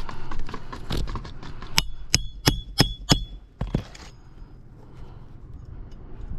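Metal tool working a roof shingle: small clicks and scrapes, then five sharp ringing metallic strikes about a third of a second apart, falling quieter after about four seconds.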